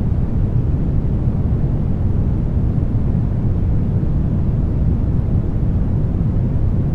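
Steady brown noise, a deep, even rumbling hiss with most of its weight in the bass.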